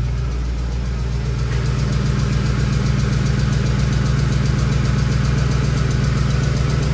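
Ford 5.4L 3-valve Triton V8 idling steadily with a constant tick, the sign of a loose spark plug letting combustion gases leak past its threads.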